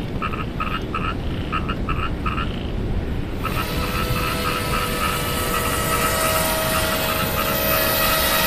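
Electric motors and propellers of a four-motor RC air boat whining steadily, from about three and a half seconds in and growing louder as the boat comes near. Before that, a high tone breaks into short pulses, and a steady low rumble runs under everything.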